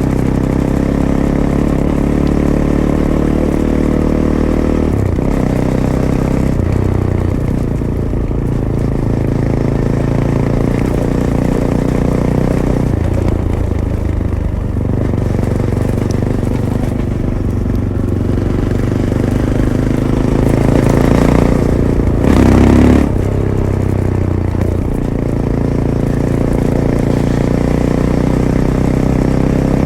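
Fantic Caballero 500's single-cylinder engine, through its stock Arrow exhaust, pulling the bike along a dirt trail, its note stepping up and down with throttle and gear changes. It is loudest in a short burst of acceleration about two-thirds of the way through.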